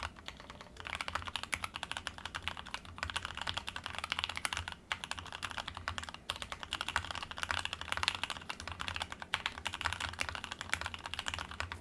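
Fast typing on a Matrix 2.0 mechanical keyboard with Zeal Tealios V2 67 g linear switches: a dense run of keystrokes with a few brief pauses.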